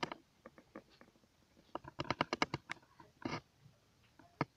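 A series of sharp clicks and taps, with a quick flurry of them about two seconds in and a single click near the end.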